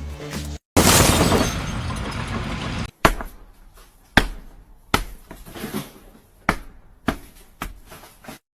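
A loud rushing noise for about two seconds, then a run of about seven sharp knocks or bangs at uneven intervals, each dying away quickly.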